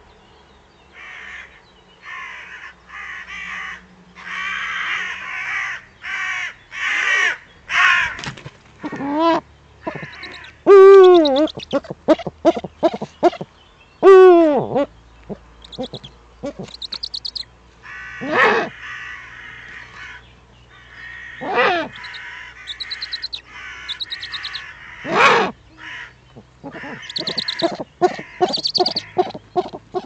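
Angry corvids cawing harshly over and over. The calls start about a second in, come in series, and are loudest in a few close, drawn-out caws around the middle, with a quick run of short caws near the end. This is typical of crows mobbing an eagle owl on its nest.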